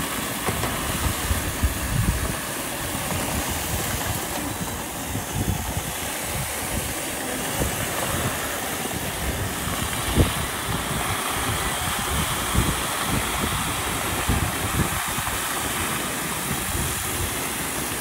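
Several iRobot Roomba and eufy robot vacuums running together, their motors and brushes making a steady whirring hiss, with irregular low rumbles underneath and a sharper knock about ten seconds in.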